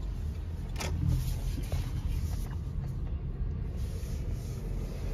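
Car cabin noise while driving: a steady low rumble of engine and road heard from inside the car, with a single sharp click about a second in.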